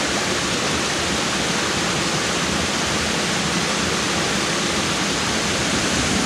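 Rushing water of a small mountain stream, a steady, even rush.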